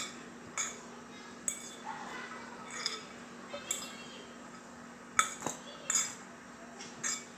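A metal spoon clinks and scrapes against a glass mixing bowl while stirring a couscous salad. It makes about nine sharp, irregular clinks, roughly one a second.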